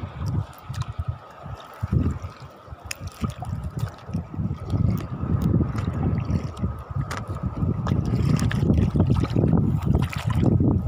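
Small sea waves lapping and splashing in shallow water close to the microphone, with gusty wind buffeting it; the water grows louder in the last few seconds.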